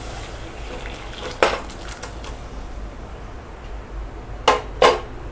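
Cooked moong dal being poured from a vessel into a non-stick saucepan, with clinks of cookware against the pan: one knock about a second and a half in and two sharp knocks close together near the end.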